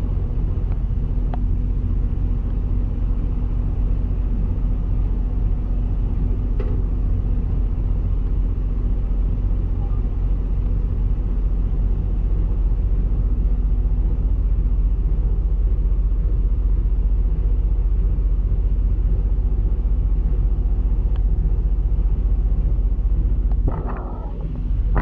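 Semi truck's diesel engine running with a steady low rumble; the rumble drops off sharply near the end.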